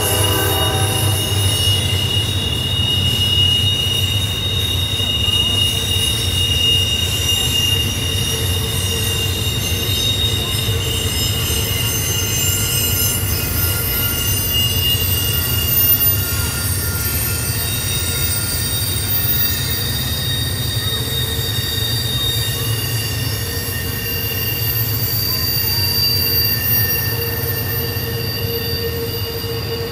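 Freight train cars rolling past with steady, high-pitched wheel squeal from the wheel flanges grinding on the rails of a sharp curve, over a low, continuous rumble of the wheels and cars.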